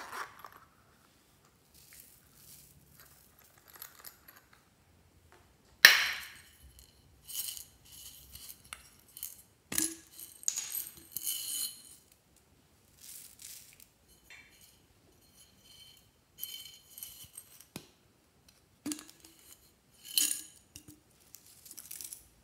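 Small plastic mix-ins (beads, sprinkles and shell charms) poured and dropped into a glass baking dish, in scattered bursts of light clicks, rattles and clinks. The sharpest click comes about six seconds in.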